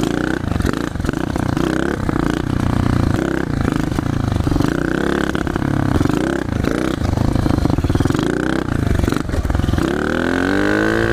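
A 110cc pit bike's engine revving up and backing off over and over, its pitch climbing and dropping every second or two, with a long rising rev near the end.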